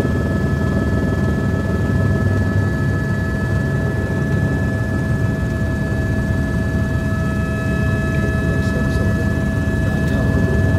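Helicopter cabin noise: a steady low rumble of rotor and engine with several constant whining tones above it.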